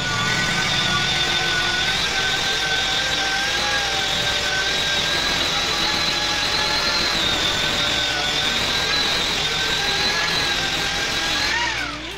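Electric angle grinder with a number 4 granite polishing pad running steadily against the edge of a black granite slab. Its whine wavers slightly as it is pressed along the stone, then winds down near the end.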